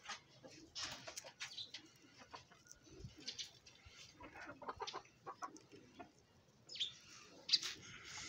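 Chickens clucking, with other birds calling around them, and a brief louder rustle about seven seconds in.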